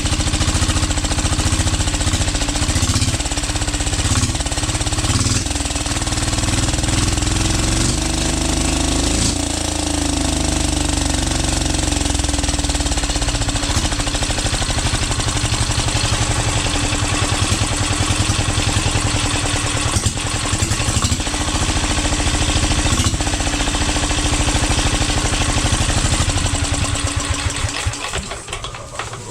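Overhauled 12 HP air-cooled low-speed single-cylinder diesel engine running with a rapid steady knocking beat on its test run, then dying away near the end.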